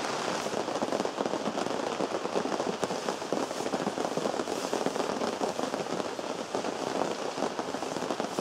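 Rain drumming on a canvas tent, heard from inside: a dense, steady patter of drops on the fabric.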